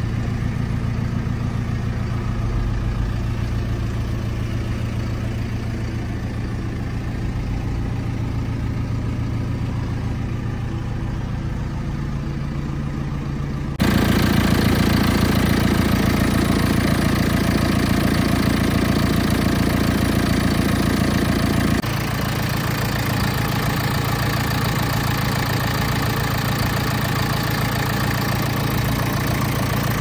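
JCB 3CX backhoe loader's diesel engine idling steadily. About halfway through, the sound jumps abruptly louder and fuller, heard close to the open engine bay, then eases back slightly about eight seconds later.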